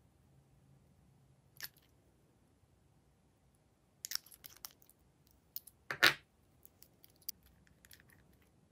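Small nail polish bottles handled and their screw caps twisted: scattered light clicks, a quick cluster of ticks, and one short, louder rasping twist of a cap.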